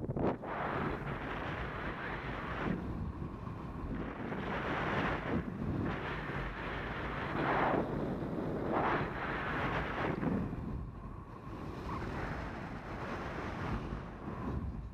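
Airflow buffeting the microphone of a paraglider's onboard camera in flight: a rushing wind noise that swells and eases in several gusts.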